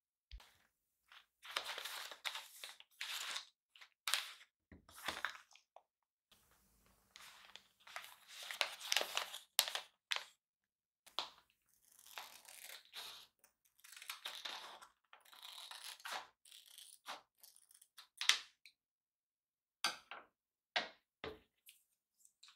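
Paper coffee-bean bag crinkling and rustling in short, irregular bursts as it is handled.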